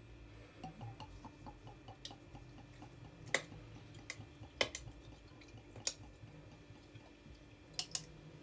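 Aperol poured from the bottle over ice in a wine glass: a quick run of soft glugs early on, then a handful of sharp clicks as the ice cracks and shifts against the glass.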